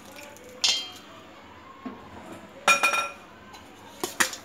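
Perforated steel ladle clinking against a stainless steel bowl while stirring tamarind paste into cooked rice: three bouts of sharp metal clinks, each ringing briefly.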